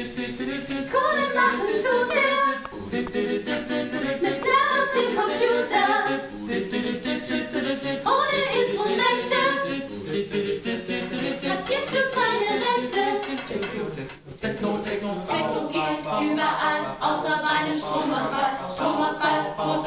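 Several voices singing together without instruments, in a continuous vocal line with a short break about fourteen seconds in.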